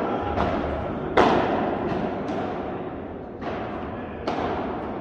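Padel balls being struck by rackets and bouncing off the court and glass walls, about six sharp knocks at uneven intervals, the loudest about a second in, each echoing through a large indoor hall.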